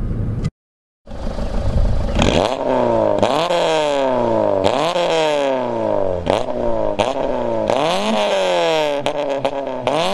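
Peugeot 206 with an aftermarket Magnaflow exhaust, free-revving: after a brief silent gap, a run of quick throttle blips, each rev climbing sharply and falling back, about one a second. Several sharp cracks from the exhaust come near the end.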